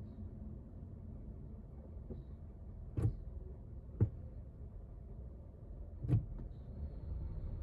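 Low steady rumble of a car heard from inside its cabin while it waits in traffic. Three sharp knocks come through: the first two a second apart, the third about two seconds later.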